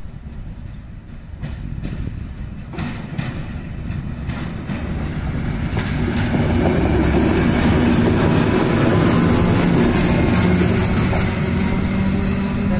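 ZSSK class 757 'Okuliarnik' diesel locomotive running on the station tracks. Wheel clicks on the rails come early on, and about halfway through the engine grows louder into a steady drone.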